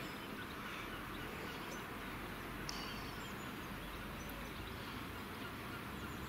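Steady outdoor background hiss, with a few faint, high bird chirps scattered through it.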